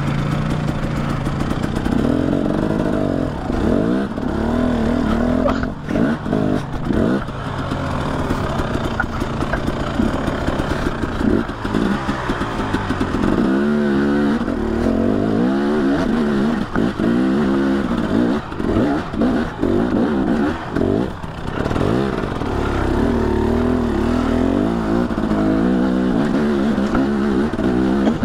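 ATV engine revving up and down again and again as it climbs over rocks, with clattering knocks from the machine.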